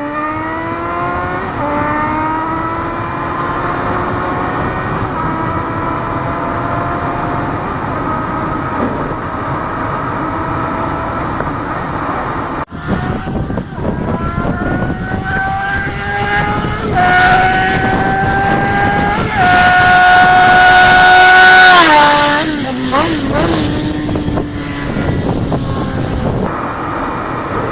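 Yamaha XJ6 inline-four engine accelerating hard through several gears: its pitch climbs in each gear and drops at each upshift. Near the end it is loudest, holding a high steady pitch for about two seconds before the revs fall away.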